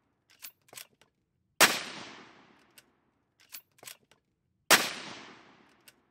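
Two rifle shots from a CZ 527 Carbine bolt-action rifle in .223 Remington, about three seconds apart, each echoing and fading over about a second. Between them come small clicks of the bolt being worked to chamber the next round.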